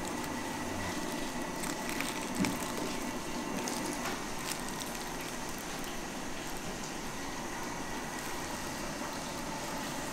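Steady sizzling hiss of battered loaches deep-frying in a wide pan of oil, with a few small clicks and one knock about two and a half seconds in.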